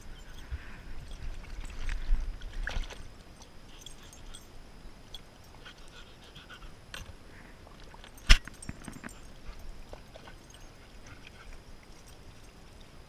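Dogs moving about at a plastic water tub, with faint lapping and scuffling, and one sharp knock a little past eight seconds in.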